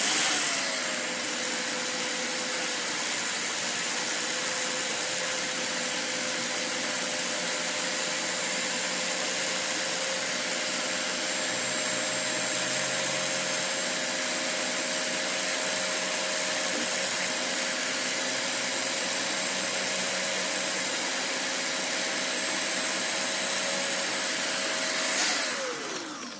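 Cordless drill-driver, clamped to the bench with its trigger held on, running at steady speed with a high motor whine as a 2 mm bit drills into a small wooden float body. It starts up at once and winds down in falling pitch about a second before the end.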